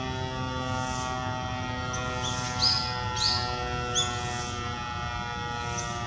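A multi-horn electric fire-brigade siren winding down after its fire-prevention blast, its steady tone sinking slowly in pitch. Birds chirp a few times.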